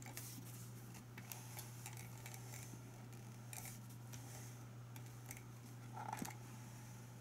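Faint scattered clicks and light handling noise as a 1/6-scale plastic-and-diecast action figure is turned around, over a steady low electrical hum.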